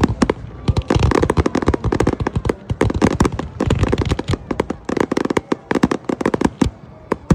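Fireworks display: rapid volleys of sharp bangs and crackling pops, many a second, coming in dense clusters and thinning out near the end.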